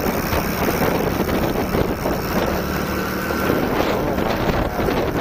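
Wind rushing over the camera microphone on a moving motorcycle, with the Hero Splendor's small single-cylinder four-stroke engine running steadily underneath at cruising speed.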